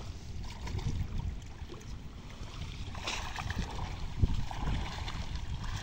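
Wind buffeting the microphone over water sloshing around people wading among bamboo-slat fish-trap screens. There is a rustling splash about three seconds in and a sharp knock just after four seconds, the loudest sound.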